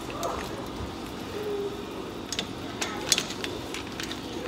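A plastic kitchen utensil clicking and knocking against crab legs and a stainless-steel stockpot as seafood is pushed into place, with a cluster of sharp clicks about two to three seconds in over a steady background hiss.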